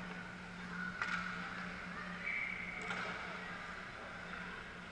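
Ice hockey rink ambience: a steady low hum under the scrape and clatter of youth players' skates and sticks, with two sharp clacks about one and three seconds in.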